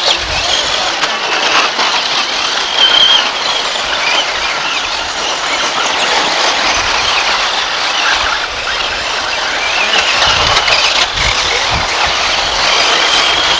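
Electric radio-controlled off-road race cars running on a dirt track, their motors giving a high wavering whine over a constant rushing noise.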